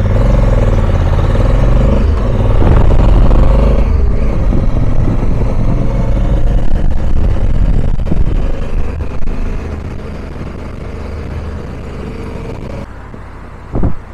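Honda Africa Twin motorcycle under way: a steady low engine rumble under a constant rush of wind noise. The sound drops and thins abruptly near the end.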